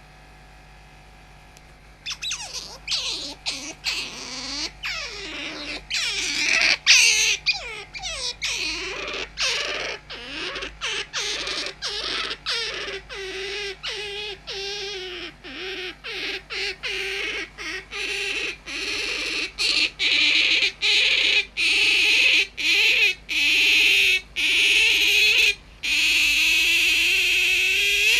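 Pet otter squealing over and over, starting about two seconds in with a quick run of short squeaks that bend up and down in pitch, then settling into longer, shrill squeals with brief breaks.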